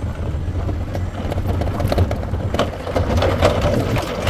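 Linde forklift running and moving, heard from inside its cab: a steady low hum, with clattering and rattling that grows busier about two seconds in.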